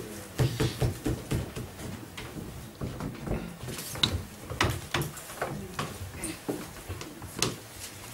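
Indistinct low murmuring with scattered knocks, clicks and rustles of people shifting and moving about in a room.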